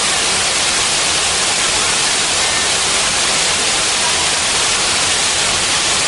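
Nunung Waterfall, a tall waterfall on the Ayung River, pouring into its plunge pool: a loud, steady rush of falling water.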